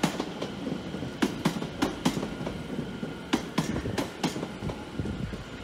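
London Overground Class 710 electric multiple unit passing at moderate speed, its wheels clicking over the rail joints in quick pairs above a steady rumble.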